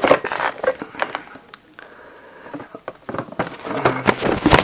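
A paper instruction sheet rustling and a cardboard box being handled, in quick crackly strokes, with a quieter stretch about halfway through.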